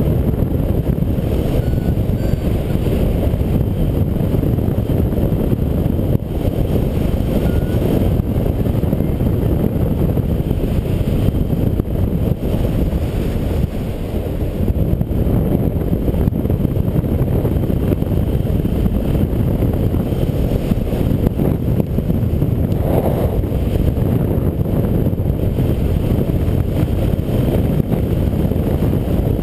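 Wind rushing over the microphone of a camera on a hang glider in flight: a loud, steady low rumble of airflow.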